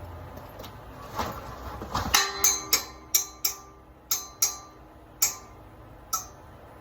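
Metal rack parts clanking together, about ten sharp clinks with a short metallic ring, irregularly spaced, starting about two seconds in.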